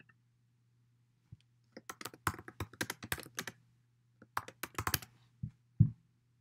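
Typing on a computer keyboard in two quick runs of keystrokes, the second starting about four seconds in, then two louder single clicks near the end, over a faint low hum.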